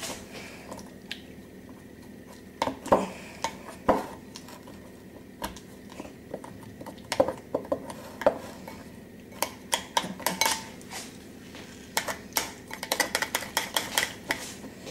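Metal spoon clinking and scraping against a glass mixing bowl while stirring a lemon cream-cheese icing and crushing lumps in it. The clicks come singly at first and then in quick clusters near the end.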